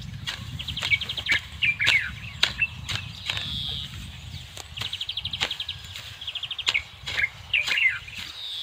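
A hoe chopping and scraping into dry soil and grass, a sharp knock every fraction of a second, while a bird chirps in rapid high trills with a few short falling calls.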